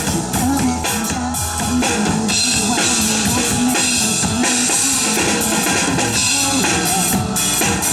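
Drum kit played live over a recorded pop song: kick drum, snare and cymbals keeping a steady beat along with the song's melody.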